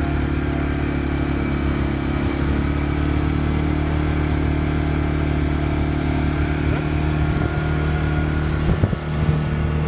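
ATV (quad bike) engine running at a steady speed while the quad is ridden across sand, its hum holding one even pitch.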